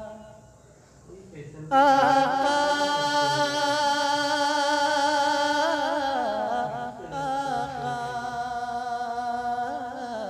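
A man singing a naat, holding one long, wavering melismatic note on the word "aaka". The note starts sharply about two seconds in and is sustained almost to the end.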